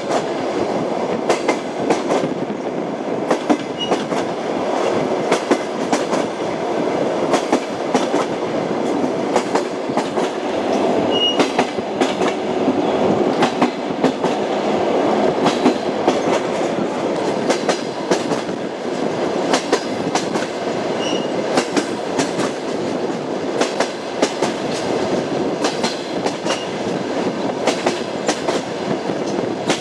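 Railway carriage wheels clacking over rail joints, with a steady rumble of the moving train and frequent sharp clicks.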